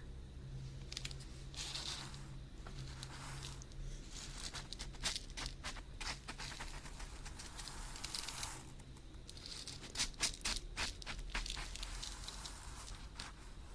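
Close-miked crackling and scratching from an ASMR trigger object being handled, coming in short clusters of quick clicks with soft hissing rubs between them.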